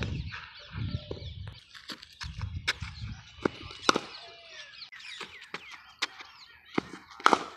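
Birds calling and chirping, with a few sharp knocks, the loudest about four seconds in and near the end.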